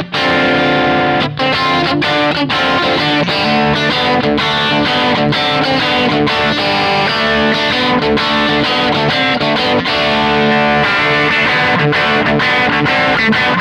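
Electric guitar with Häussel TE Broad (Telecaster-style) pickups in a Strat-shaped body, picked through an amplifier. It plays a continuous run of single notes and chords without a pause.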